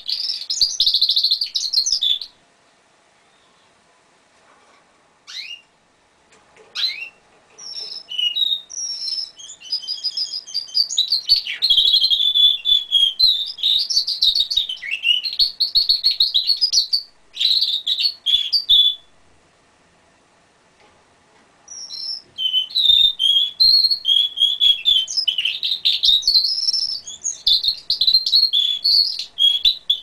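Domestic canary singing: long phrases of rapid trills and warbles. The song breaks off about two seconds in and starts again with a few short notes, runs until about nineteen seconds, pauses, and resumes about three seconds later.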